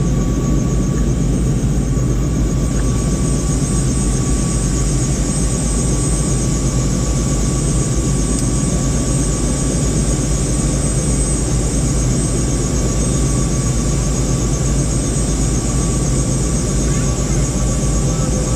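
Sightseeing helicopter running steadily: an even drone with a steady high-pitched whine over it.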